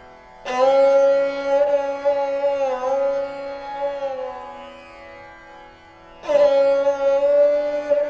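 Background music of a plucked string instrument in an Indian classical style, over a faint drone. One note is struck about half a second in and rings for several seconds with small bends in pitch; a second note is struck near the end.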